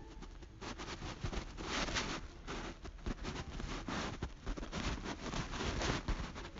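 Fingertips tapping a smartphone's touchscreen keyboard, picked up by the phone's own microphone: irregular soft taps, several a second, with rustling noise between them.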